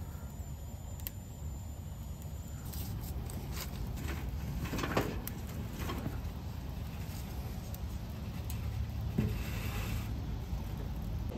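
Small wood fire in a Winnerwell titanium tent stove as twigs and sticks are pushed into the firebox: sticks scraping and rustling against the stove, with a few sharp crackles and snaps over steady low background noise.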